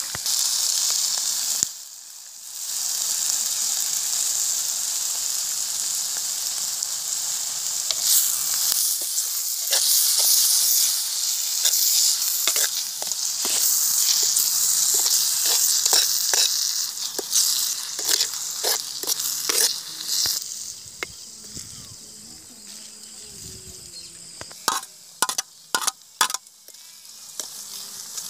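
Goat blood poured into hot oil and fried small onions in a clay pot over a wood fire, sizzling loudly, with a brief dip about two seconds in. After about twenty seconds the sizzle dies down, and a spoon scraping and clicking against the clay pot as the blood is stirred is left.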